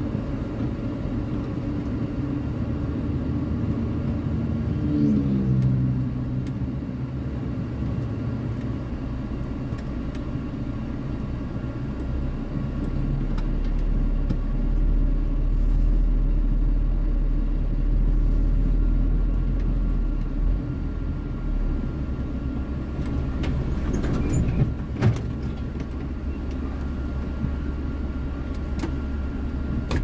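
Heavy truck's diesel engine running as the loaded rig moves slowly, with the engine pitch sweeping down about five seconds in and a deeper rumble in the middle; a few sharp clicks or knocks near the end.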